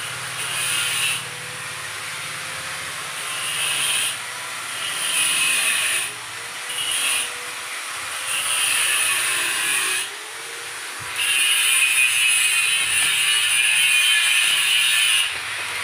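Angle grinder working steel sheet bodywork: the disc is pressed against the metal in about six separate bursts of grinding, with short easings in between, and the longest bite comes in the last few seconds.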